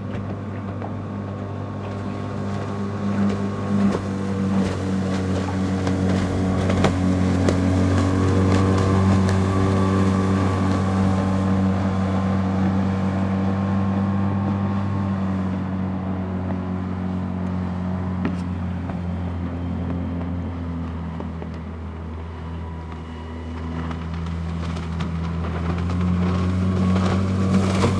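Outboard motor on a small Glen-L Squirt wooden boat running steadily at high speed as the boat planes across the water, with a steady low engine hum. It fades slightly and then grows louder near the end as the boat comes closer.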